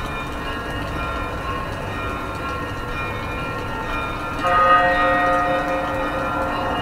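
Church bells ringing, their tones ringing on and overlapping, with a fresh, louder bell stroke about four and a half seconds in; a low city rumble lies underneath.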